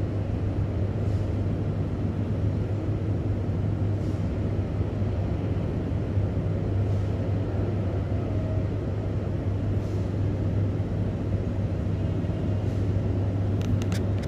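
Hino coach's diesel engine idling, a steady low drone. A few short clicks and a hiss come near the end.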